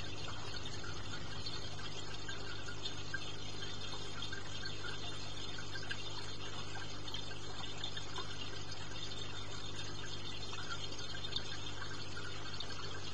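Aquarium water circulation: a steady trickle and splash of water with a constant low hum from the filter or pump.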